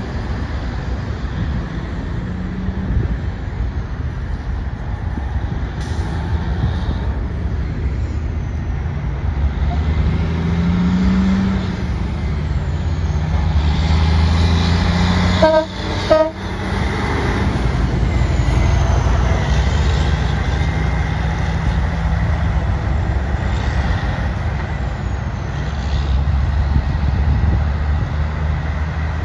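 Steady rumble of semi-truck diesel engines and tyres on the highway, growing louder as a cab-over semi approaches and passes. As it passes, the truck's horn sounds twice in quick succession, two short toots about half a second apart.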